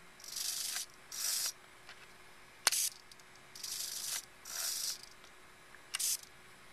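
Two small RC hobby servos whirring in four short bursts as their arms swing back and forth with the transmitter's throttle stick. Sharp clicks come about a third of the way in and near the end, from the transmitter's toggle switch being flicked.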